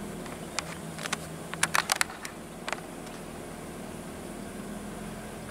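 Steady engine and road hum heard from inside a moving car's cabin. An irregular run of sharp clicks, the loudest sounds here, comes from about half a second to nearly three seconds in.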